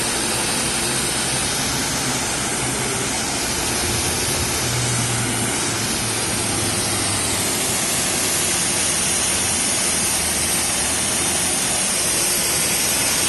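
High-pressure water jet from a car-wash pressure-washer wand spraying onto a car's hood and bodywork, a steady hiss of spray and splashing water.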